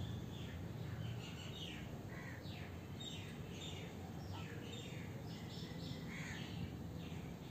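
Birds chirping: many short, quick, falling chirps that overlap through the whole stretch, over a low steady background noise.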